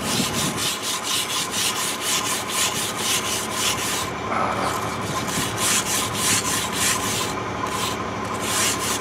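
Wire brush scrubbing slag off a fresh stick-weld bead on steel, in quick strokes about three to four a second. It pauses briefly about four seconds in.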